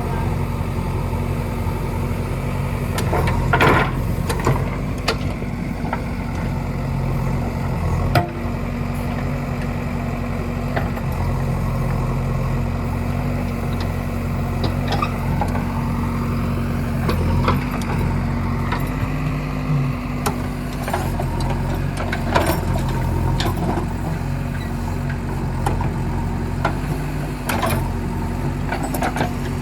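JCB backhoe loader's diesel engine running steadily, its pitch rising and falling slightly near the middle, with scattered sharp knocks and clanks from the working machine.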